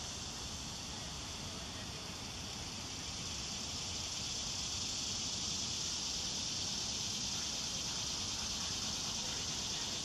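Cicadas singing in a steady high-pitched drone that swells slightly a few seconds in, over a low background rumble.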